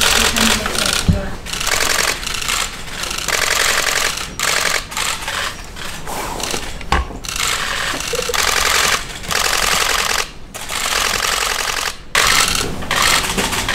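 Press camera shutters firing in rapid bursts, a fast run of clicks in each, stopping and starting again every second or so.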